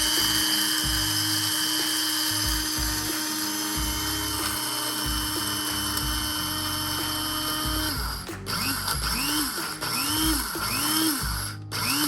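Small electric blade coffee grinder chopping whole coffee beans, its motor held on in one steady run for about eight seconds, then pulsed in four or five short bursts, each spinning up and dropping away.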